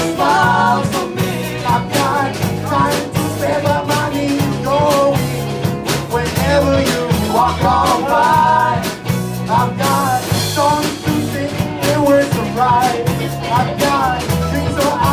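Live rock band playing in a small club: a man singing over electric guitars, bass and a drum kit, heard from within the audience.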